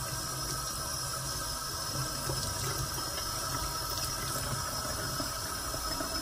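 Kitchen mixer tap running steadily, the water splashing over an eggplant being rubbed clean by hand in a stainless steel sink.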